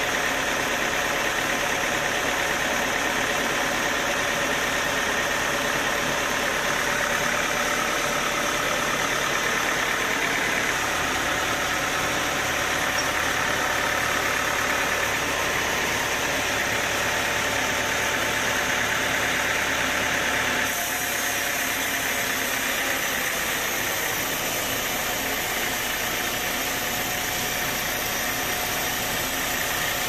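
Band sawmill running with a continuous, steady mechanical noise. Its tone shifts slightly about a third of the way in and again about two-thirds of the way through.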